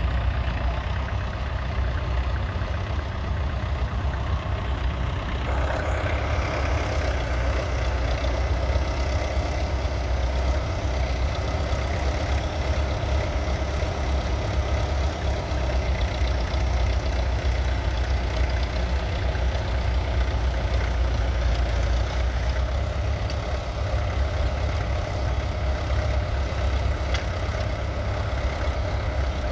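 International Harvester B275's 2.3-litre four-cylinder diesel engine running steadily, its note growing brighter about five seconds in.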